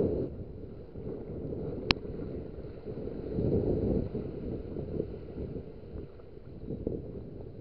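Wind buffeting a small camera's microphone over the wash of surf on the beach, a low rumble that swells and fades, with one sharp click about two seconds in.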